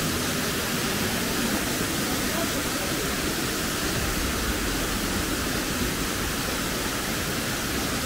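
Steady rushing of waterfall water, an even noise with no breaks.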